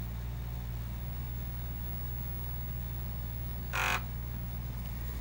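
Atari 810 floppy drive running with a steady low hum as it fails to boot a disc, with one short burst of noise about three-quarters of the way in. The owner takes this behaviour as the sign that something is wrong with the drive.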